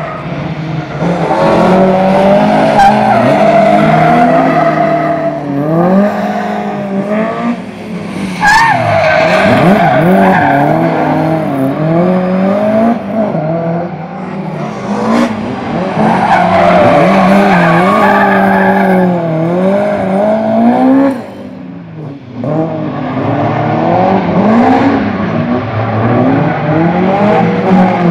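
BMW M3 engine revving up and falling back again and again as the car is driven hard through tight turns, with tyres squealing and skidding. Two sharp cracks cut through, and the engine briefly drops off about three quarters of the way through before picking up again.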